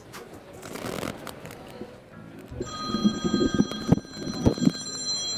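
A ringing chime of several steady high tones starts about halfway in and holds, with two sharp knocks during it.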